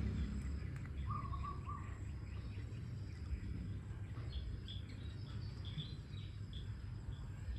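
Short high chirps repeating over a steady low rumble of background noise, with a brief whistled call about a second in.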